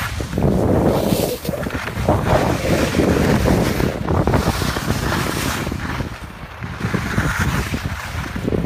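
Wind buffeting the microphone while skiing downhill, a loud gusting rush that swells and dips, mixed with the hiss of skis sliding over packed snow.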